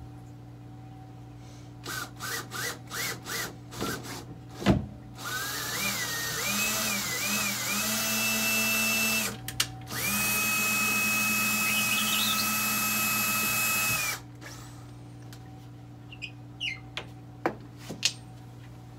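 Cordless drill driving a screw into drywall to open a hole for a wall anchor: a string of short trigger pulses, then two longer runs of several seconds whose pitch rises and then holds steady. A sharp knock comes just before the first long run, and a few light clicks near the end.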